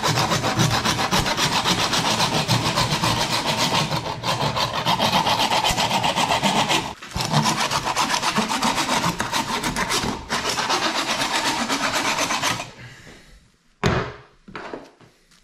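Hand saw cutting through the bone of a caribou's skull plate at the antler base, in fast steady strokes with a few brief pauses. The sawing stops about twelve and a half seconds in, and a single knock follows near the end.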